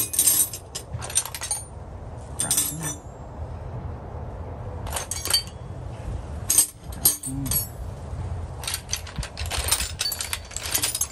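Steel wrenches and sockets clinking against each other as they are picked up and set down on the pile, in irregular clusters of sharp metallic clicks.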